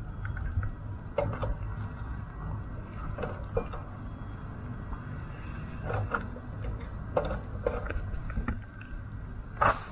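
Stainless steel barbecue tongs and a plastic shopping bag being handled: scattered light clicks and rustles over a steady low rumble. A brief loud hiss comes near the end.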